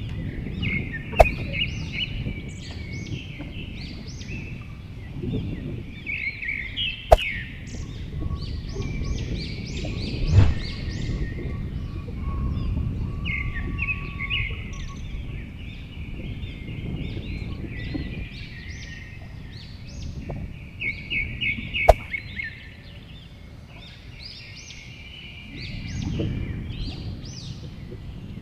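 Small birds chirping in quick repeated runs, over a low, uneven rumble of wind on the microphone, with a few sharp clicks.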